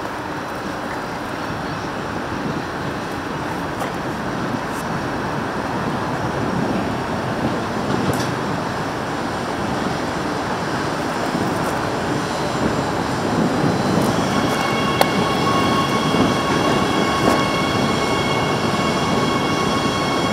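Adelaide Metro 4000-class electric train running along the track, a steady rumble of wheels on rail that slowly grows louder. About two-thirds of the way in, a steady high whine of several tones joins it and holds.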